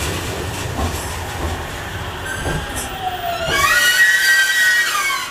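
An Aichi Loop Railway electric train running slowly alongside the platform as it brakes to a stop, its wheels rumbling low. In the last couple of seconds a loud squeal of several high tones slides down in pitch as the train comes to a halt, then cuts off.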